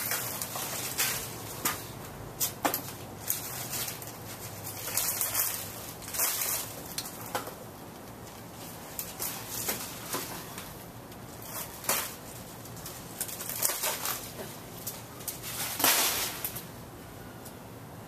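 1986 Hunter Original ceiling fan's oil-bath stack motor running with a low steady hum, while the blades spin at speed. Over it come irregular short rustling bursts and clicks, the loudest about two seconds from the end.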